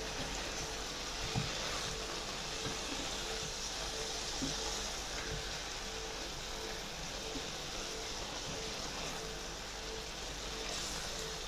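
Beef, onions and chopped collard greens sizzling steadily as they fry in butter in a pan, stirred now and then with a utensil that gives a few soft scrapes.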